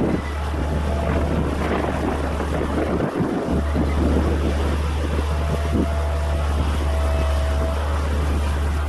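Wind buffeting the microphone, with the engine of a small earthmoving machine running at a distance underneath it. The low rumble drops out briefly about three seconds in.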